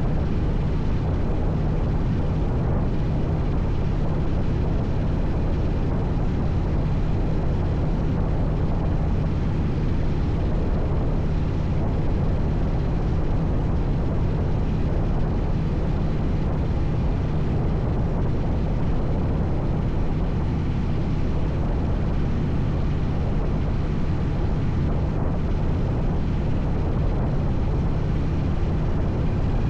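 Steady low engine drone, a constant deep hum over a rush of noise, unchanging in pitch and level.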